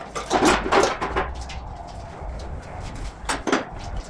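Workshop handling noise: several short clattering and rustling bursts as wiring and parts are worked loose from the stripped front end of a car, with a pause between them.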